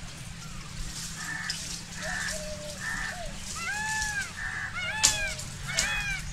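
Peacock calling in a series of short honking calls, each rising then falling in pitch. The calls start soft about a second in, then come louder and quicker, about two a second, in the second half. One sharp click about five seconds in.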